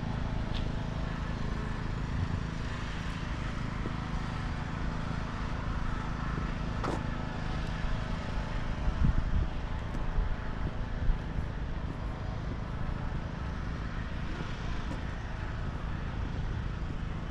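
Steady low rumble of distant city traffic, with a few faint clicks.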